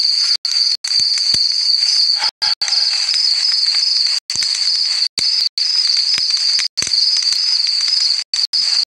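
Crickets trilling steadily at a single high pitch, the sound cutting out briefly about a dozen times.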